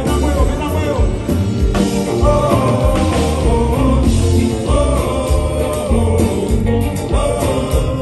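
Live Haitian konpa band playing: a male lead singer on microphone over electric guitar, drums, bass and keyboards, with a steady beat.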